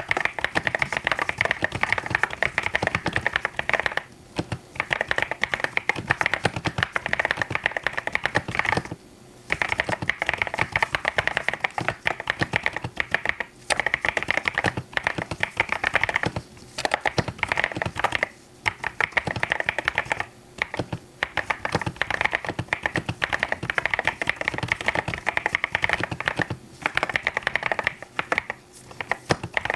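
Fast typing on a mechanical keyboard: dense runs of keystrokes broken by short pauses every few seconds.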